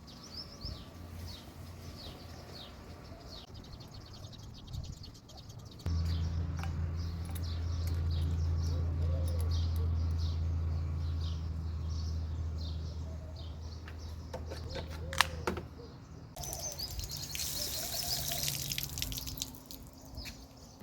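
Birds chirping throughout. A steady low hum runs for about ten seconds, and then water gushes from a newly fitted cold-only basin faucet for about four seconds near the end.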